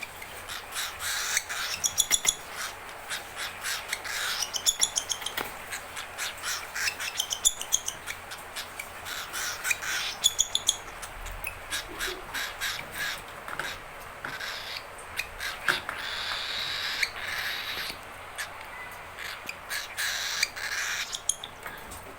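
Baby cockatiel giving repeated harsh, raspy calls, many short ones in quick runs: the hungry begging calls of an unweaned chick.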